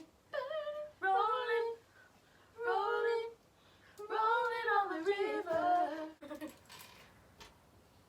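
A woman singing a few short unaccompanied phrases, then a couple of faint clicks near the end.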